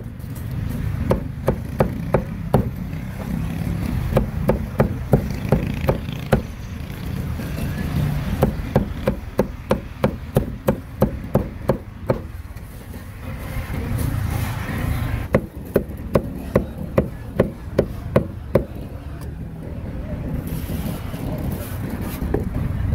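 Cleaver chopping grilled meat on a wooden chopping board: sharp knocks in runs of about three strokes a second, with short pauses between the runs.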